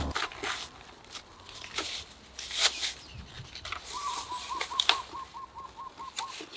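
Thin plastic bag crinkling and rustling in irregular crackles as a salad roll is packed into it. From about four seconds in, a bird calls a quick run of short, even, repeated notes, about four or five a second.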